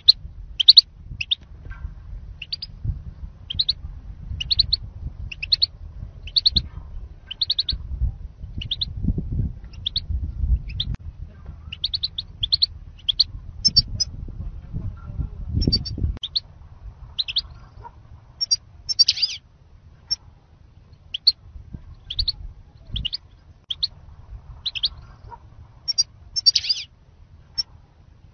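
European goldfinch calling: short, high chirps about once a second, sometimes in quick pairs or runs. A low rumble, like wind on the microphone, runs under the calls and drops away about halfway through.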